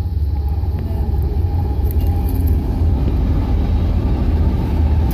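A loud, steady low rumble of wind buffeting the microphone outdoors.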